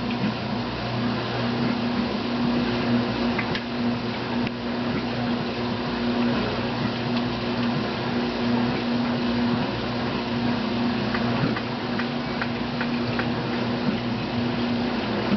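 GE washing machine running with a steady motor hum, with a few light clicks in the second half.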